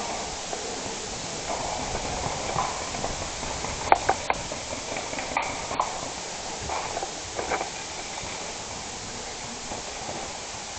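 Helmet-cam ambience during an airsoft game: a steady background hiss with scattered soft knocks, like footsteps and gear movement, and two pairs of sharp clicks about four and five and a half seconds in.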